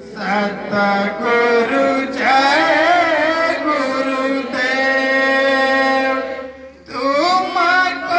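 Aarti hymn being sung, a chanting melody with long held notes and a brief pause for breath near the end.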